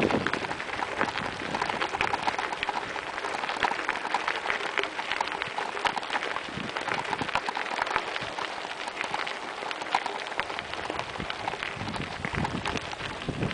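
Bicycle tyres rolling over a loose gravel track: a dense, steady crackle of small stones crunching.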